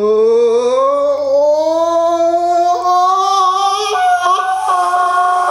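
A young man's loud roar: one long, unbroken held vocal note that slowly rises in pitch.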